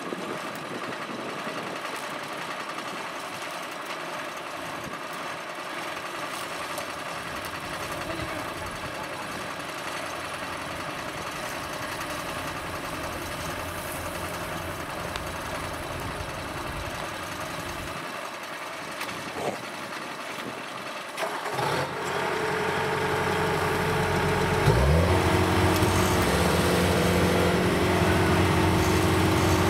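Rice-hauling tractor engine running under load as it tows a combine harvester bogged in mud by a chain. About 22 seconds in it gets louder with a steady engine note, and a few seconds later it revs up briefly.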